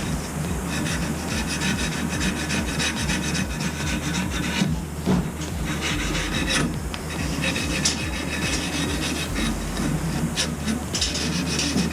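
Steel gas pipe being worked by hand: irregular rasping, scraping strokes of metal on metal, with a steady low hum underneath.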